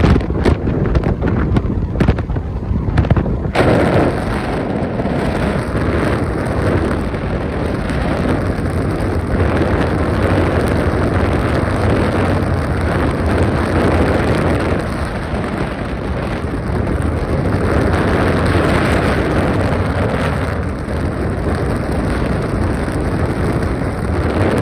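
Strong wind buffeting the microphone, a heavy low rumble with no speech; the noise thickens and spreads higher about three and a half seconds in.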